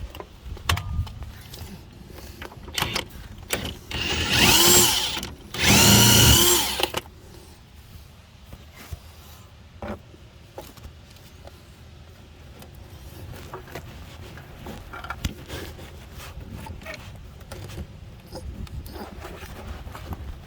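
A power tool run in two bursts of about a second each, backing out a bolt on a car's front strut assembly, with scattered clicks and knocks of tools and metal parts around them.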